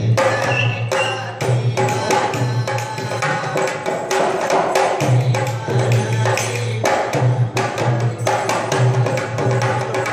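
Live-style folk music with a dense hand-drum rhythm for a string-puppet show. A short high whistling tone sounds about a second in.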